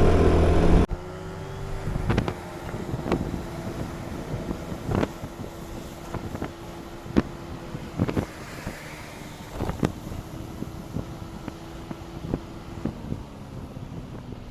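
Motor scooter engine running loudly for about a second, then dropping off suddenly to a much quieter steady hum. Scattered, irregular sharp taps of raindrops follow until near the end.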